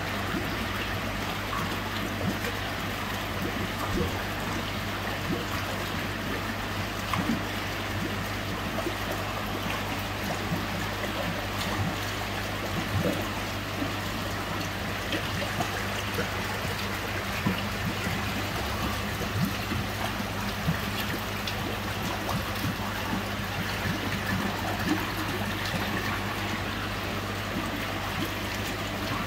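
Water trickling and bubbling steadily in a koi tank, over a steady low hum, with scattered small clicks.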